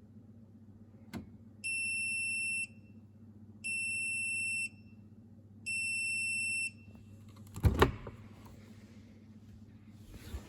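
Bosch washing machine's end-of-programme signal: three long electronic beeps, each about a second long and two seconds apart, after a faint click. A louder double knock follows near the end, over a faint steady low hum.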